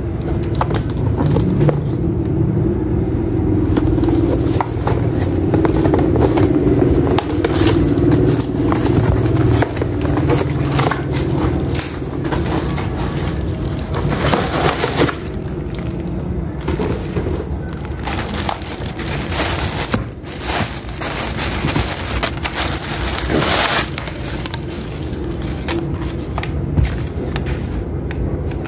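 Cardboard box and paper packaging being handled, rustled and crinkled while a bike helmet is unboxed, with many short crackles and scrapes. A steady low hum runs underneath.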